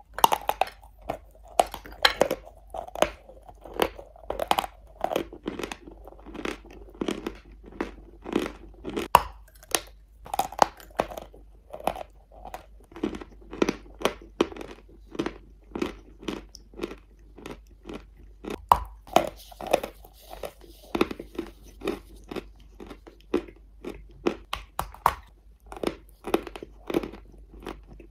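Dry chalk chunks being bitten and chewed: sharp, crisp crunches repeating about two a second.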